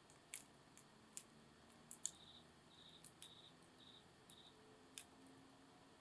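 Wood campfire crackling quietly, with several sharp pops. In the middle, an insect chirps five times in a high, evenly pulsed series.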